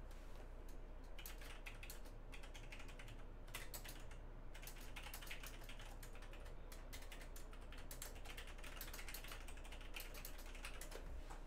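Typing on a computer keyboard: irregular runs of quick keystrokes with short pauses between them, stopping just before the end.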